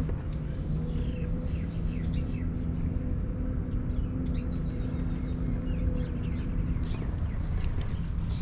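Small birds chirping, many short high chirps throughout, over a steady low rumble with a humming tone.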